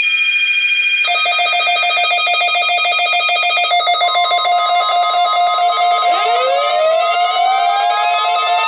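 Layered electronic alarm tones, steady at first, then pulsing from about a second in and changing again near four seconds; from about six seconds in a siren winds up, rising in pitch and levelling off.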